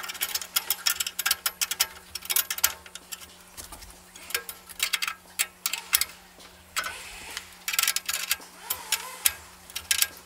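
Irregular metallic clicks, taps and rattles as stainless steel burner tubes are worked into place on a Weber gas grill's valve manifold.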